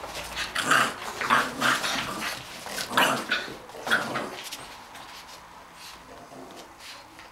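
An adult English bulldog and a bulldog puppy growling in rough play: several short, harsh growls in the first four seconds, then quieter.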